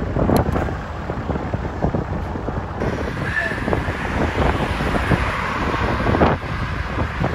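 Wind buffeting the microphone: a loud, rough low rumble broken by frequent irregular gusts.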